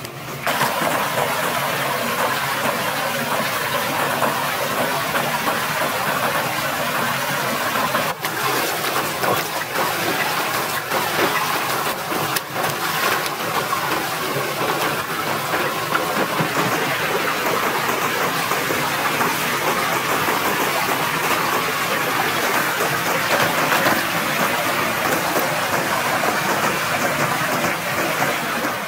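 Steady rush of a forest stream and small waterfall, with splashing as a person wades and swims in the water.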